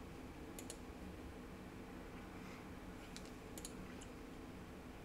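Computer mouse clicking, a few light clicks in quick pairs: one pair about half a second in, then several more between about three and four seconds in. A faint steady low hum runs underneath.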